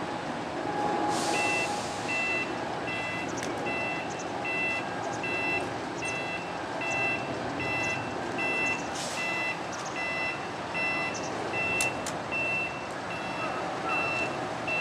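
Heavy truck's reversing alarm beeping steadily, a two-note beep about once a second, while the tractor unit backs its low-loader trailer. The diesel engine runs underneath, with a couple of short hisses.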